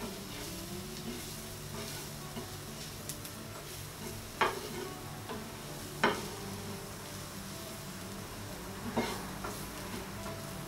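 Diced vegetables sizzling gently in oil in a stainless steel pan as a wooden spatula stirs and scrapes them. Three sharp knocks of the spatula against the pan stand out, about four, six and nine seconds in.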